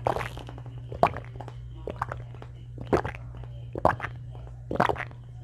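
A person gulping water from a bottle, one loud swallow about every second, over a steady low hum.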